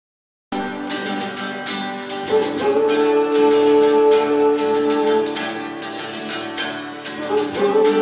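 Acoustic guitar being strummed in a live guitar-and-piano act, starting abruptly about half a second in.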